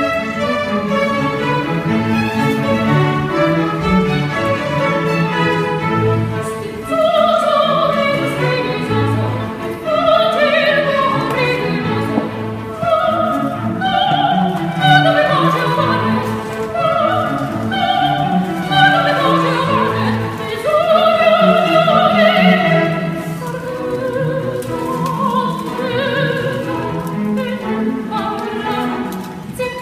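A female operatic voice sings with a string orchestra accompanying. The orchestra plays alone for the first six or seven seconds before the voice enters, and the singing then carries on over the strings with a wide vibrato.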